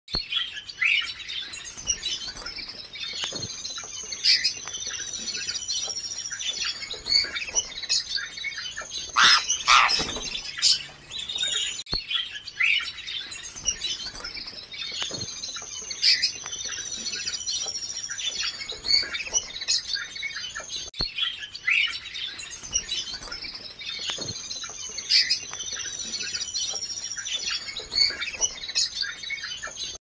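Canaries singing: a fast, continuous run of chirps and trills with long, steady high whistled notes that come back every several seconds. A brief, loud rush of noise cuts in about nine to ten seconds in.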